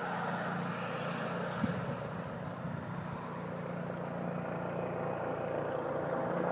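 Eurocopter EC135 police helicopter flying high overhead: a steady, distant drone of its rotors and turbines.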